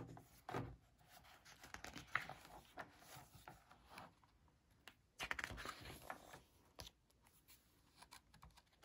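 Faint rustling and flapping of a picture book's paper pages being turned by hand, several pages in a row, with the fullest page turn about five seconds in.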